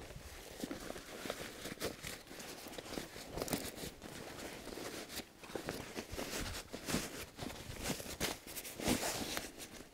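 Heavy nylon fabric of a military rucksack rustling and crinkling as it is handled, with irregular scrapes and short knocks throughout.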